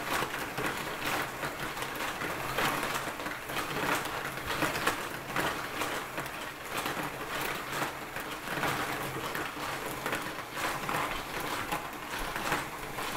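Lego marble machine running: a continuous clatter of marbles rolling and dropping through plastic Lego tracks and lifts, with the ratchet-like clicking of its gears and mechanisms.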